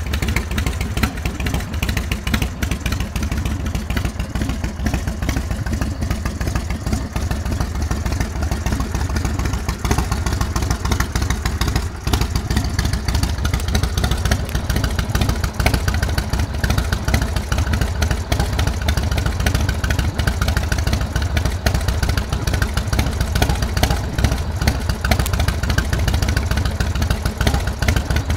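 Big Dog Ridgeback chopper's carbureted 117 cubic inch S&S V-twin running through a Supertrapp exhaust, idling steadily with a rapid, even pulse of exhaust beats.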